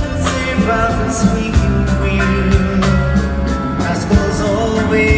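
Live band music: a drum kit keeping a steady beat under bass and acoustic guitar, with a sung melody line over the top.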